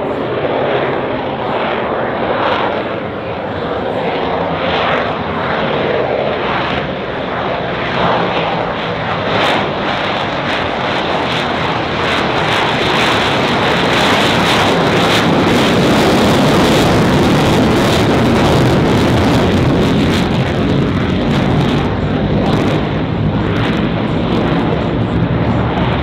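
F-35B Lightning II's single Pratt & Whitney F135 turbofan roaring in a display flypast. It grows louder to a peak about two-thirds of the way through as the jet passes close, with a rough crackle in the noise, then eases off slightly as it climbs away.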